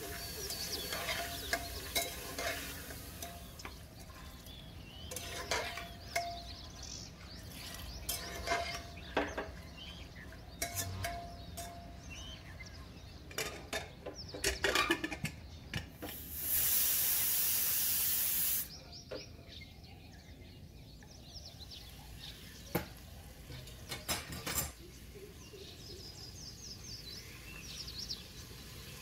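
Metal spoon stirring and scraping chickpeas in an aluminium pressure cooker, with scattered clinks against the pot, some ringing briefly. About 16 seconds in, a loud, steady hiss of steam from the pressure cooker lasts about two seconds, followed later by a few single clicks.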